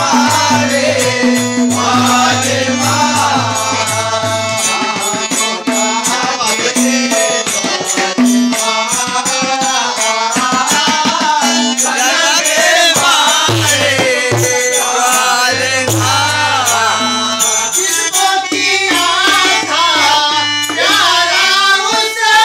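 Rivayat devotional song sung by a male lead singer, accompanied by harmonium and tabla. The tabla plays a dense run of strokes, with the bass drum's deep ringing tone sustained at times.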